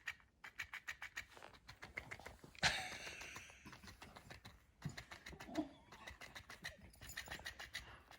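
Electric flopping fish cat toy running, its motor-driven tail flapping in an even rhythm of about six clicks a second. A single loud thump about two and a half seconds in interrupts it.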